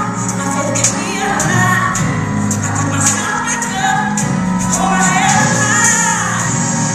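A song with female singing over a steady percussion beat: the backing music for a stage dance number.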